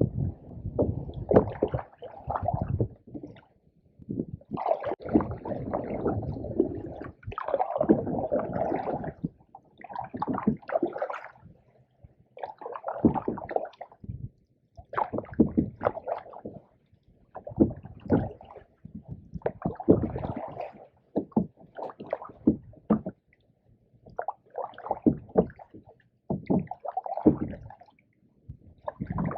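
Canoe paddles dipping and pulling through pond water, a gurgling, splashing stroke about every two seconds.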